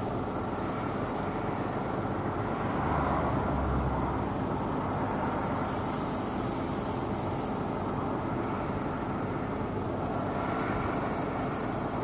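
John Deere S680i combine harvester running while cutting barley: a steady drone of its diesel engine and threshing machinery, swelling slightly about three seconds in.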